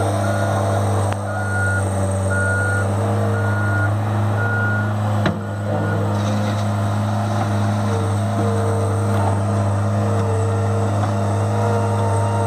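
Cat 216B3 skid steer loader's diesel engine running steadily under load. Its reversing alarm beeps about once a second as the machine backs up, and the beeping stops about halfway through. There is one short knock near the middle.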